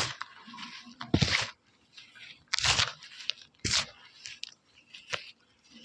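Chalk being bitten and crunched close to the microphone: about five crisp crunches roughly a second apart, with a dry crumbling crackle between them.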